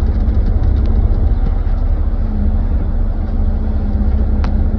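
Diesel engine of a Kubota KX040-4 mini excavator running under steady load, a loud low rumble with a steady hum above it. A single light knock comes near the end.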